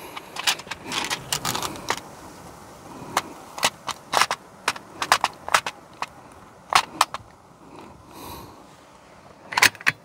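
Irregular sharp clicks and clacks, about fifteen in all, from an FX Impact M3 air rifle being handled and readied to shoot after a fresh .22 pellet magazine has gone in.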